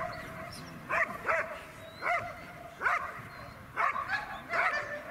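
A dog barking repeatedly, about seven sharp barks spaced half a second to a second apart.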